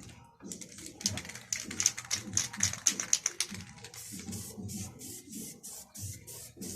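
Music with a fast run of percussive clicks, like a shaker or scraper, over a steady low beat. The clicks come thickest in the first half and then settle to about three or four a second.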